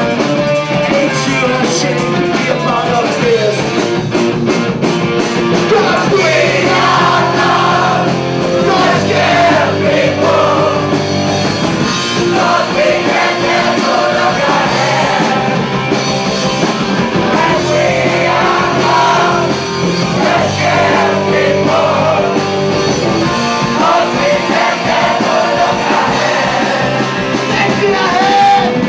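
Live rock music: a band with guitars and bass guitar playing while a choir of several voices sings.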